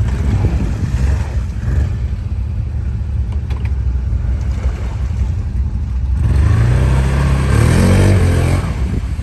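ATV engine running, then revving hard about six seconds in, its pitch climbing to a peak near eight seconds before easing off.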